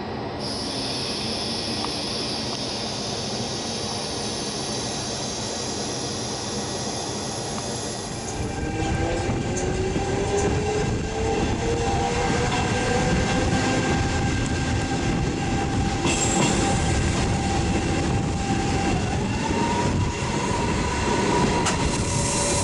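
Electric regional train running into a station, a steady rumble with a high hiss. Then, heard from an open window of an electric train pulling away, louder rolling noise and the traction motors' whine rising in pitch as it accelerates.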